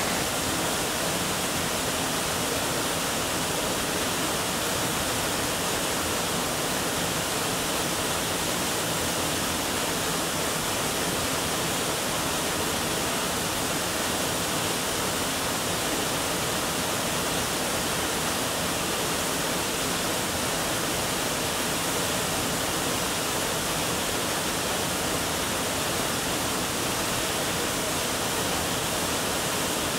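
Grotto Falls, a waterfall close by, pouring over the rock ledge and into its plunge pool: a steady, even rush of water.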